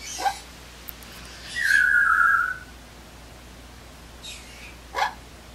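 Amazon parrot whistling: one long whistle of about a second, dropping a little in pitch, about two seconds in. A short, sharp call that sweeps down in pitch comes just after the start, and another near the end.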